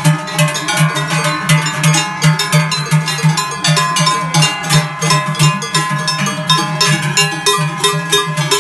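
Many cowbells clanging and ringing at once as a herd of cows walks past, with a deep bell tone swelling about twice a second in step with the animals.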